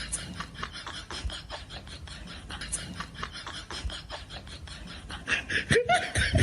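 A rapid run of short scratchy rasping strokes, several a second, growing louder near the end, where two short rising cries are also heard.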